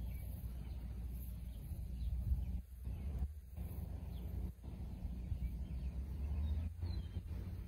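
Wind rumbling and buffeting on a phone microphone, with several brief drop-outs, and a few faint bird chirps above it.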